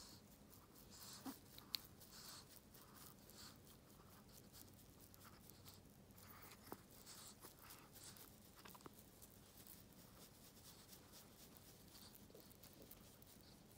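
Faint rustling and rubbing of a cloth being wiped over a Chihuahua's face and fur, with a couple of small clicks.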